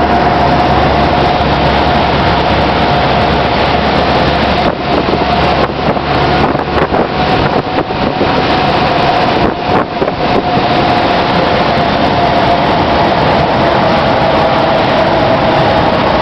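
Scania R620's 16-litre V8 diesel and road noise heard inside the cab while cruising, a steady drone with a steady whine through it. The sound dips briefly several times in the middle.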